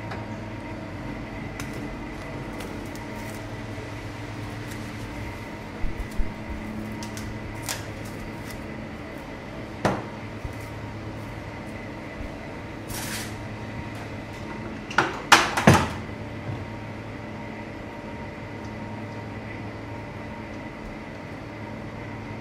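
Steady electrical hum of kitchen equipment with scattered clicks and knocks of handling. A little past halfway comes a short rustle of plastic cling film pulled from its roll, then a cluster of sharp knocks, the loudest moment.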